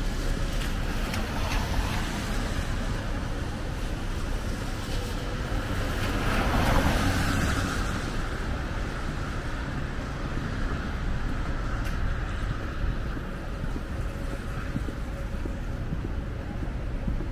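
Rainy city street ambience: a steady hiss of traffic on wet pavement, with one vehicle swelling louder as it passes about six to seven seconds in.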